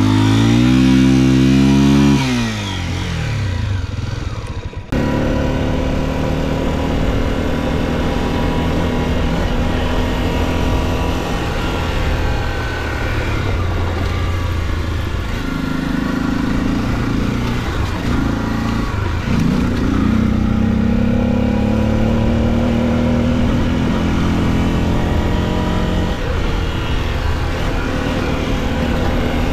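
Motorcycle engine revving up and then easing off over the first few seconds; after an abrupt cut it runs steadily, its pitch rising and falling a little with the throttle.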